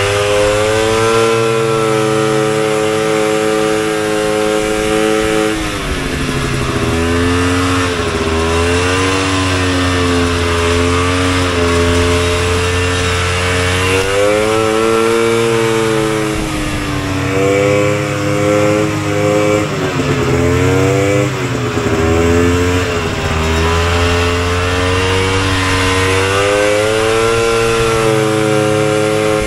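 Single-cylinder 250cc two-stroke engine of a 1972 Polaris Colt race snowmobile running under way, its pitch dropping and climbing again several times as the throttle is eased off and opened. It is on an early test run after a rebuild, and the owner felt the engine still needed carburettor tuning.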